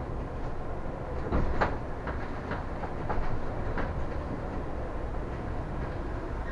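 City bus driving, heard from inside: a steady low rumble of engine and tyres, with a handful of sharp knocks and rattles between about one and four seconds in, as from bumps or rail joints in the road.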